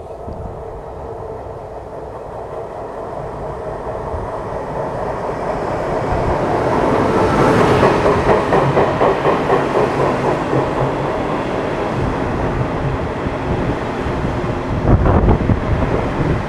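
Taiwan Railways Tze-Chiang express train pulling into the station to stop. Its noise builds as it nears, then the wheels clatter rapidly over the rail joints as the cars run past close by. It settles into a steady rumble with a few low thumps near the end.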